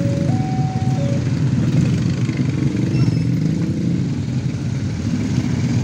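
Many motorcycle engines idling together in a low, steady rumble. A two-tone electronic level-crossing warning signal alternates high and low and stops about a second in.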